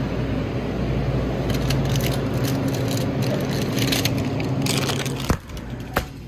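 Steady low hum of a store's refrigerated display cooler, with plastic packaging crinkling and rustling from about one and a half to five seconds in. Near the end come two sharp clicks, and the hum drops away after the first.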